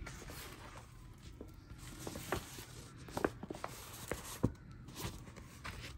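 Handling noise from a diamond painting canvas and its release paper being lifted and held: a faint rustle with a handful of short, sharp taps and clicks.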